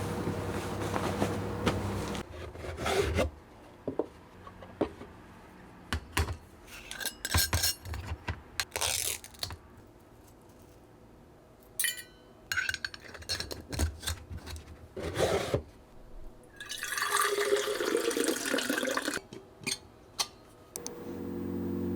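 Kitchen work sounds: dishes and utensils clinking and knocking, with rubbing sounds, and about two seconds of running water near the end. A steady hum stops about two seconds in.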